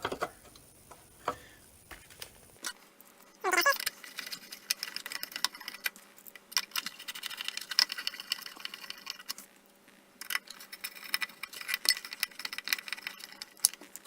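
Plastic headlight parts and wiring being handled on a workbench: irregular clusters of small clicks and rattles, with a short falling squeak about three and a half seconds in.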